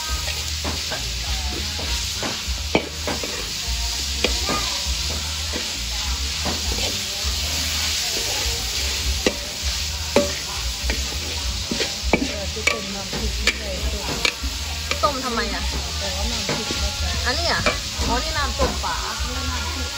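Pork sizzling as it is stir-fried in a large steel wok, with a metal spatula scraping and clacking against the pan again and again.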